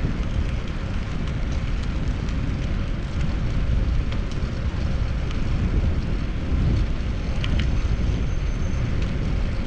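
Steady low rumble of wind buffeting a chest-mounted GoPro's microphone on a moving bicycle.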